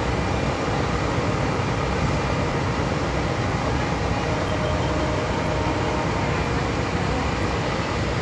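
Steady low rumble of a boat's engine, heard from on board a ferry crossing the water.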